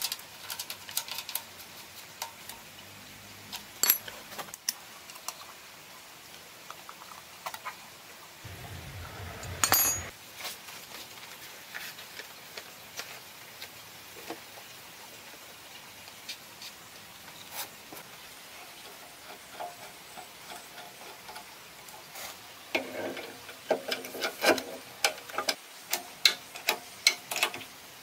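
Hand tools and small metal parts on a diesel engine clicking, tapping and clinking now and then as fittings are worked by hand. There is a short rustling scrape just before ten seconds in, and a quicker run of clinks near the end.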